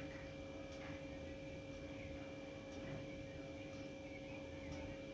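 Faint steady electrical hum, with a few faint scrapes or clicks about once a second.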